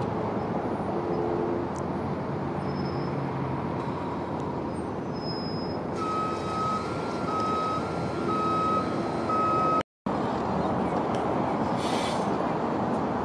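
City buses running with steady engine and traffic noise. About six seconds in, a vehicle warning beeper sounds a series of short, evenly spaced beeps for about four seconds. The sound cuts out for an instant, and near the end there is a short hiss of air.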